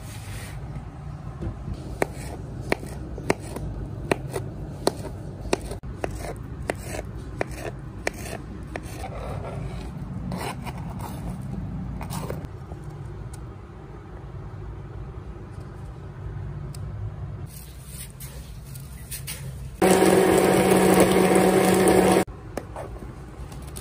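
Knife chopping fruit on a plastic cutting board, a steady run of strokes about one every 0.7 s, then softer scraping of pieces off the board. Near the end an immersion (stick) blender runs loudly for about two seconds in a milky mixture, then stops suddenly.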